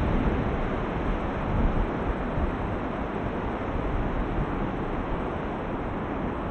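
Steady wash of surf breaking on a sandy beach, mixed with wind rumbling on the microphone.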